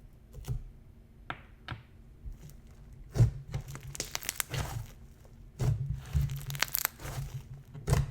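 Slime squeezed and stretched by hand, crackling and popping in irregular bursts.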